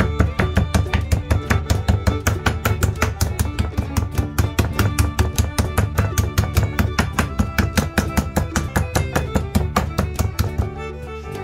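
Spiked metal meat tenderizer rapidly pounding raw steaks on a wooden cutting board, about five sharp strikes a second, over background music; the pounding stops shortly before the end.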